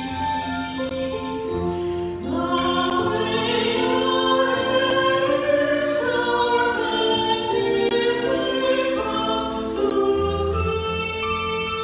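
A church hymn being sung, slow and with long held notes.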